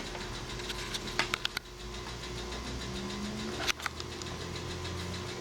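Light clicks of the door lock's parts being handled, a quick run of them a little over a second in and one more later, over a steady low hum.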